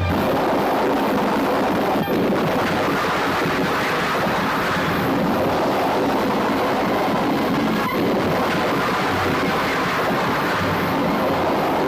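A steady, dense rushing and rumbling noise effect, dipping briefly about two seconds in and again near eight seconds.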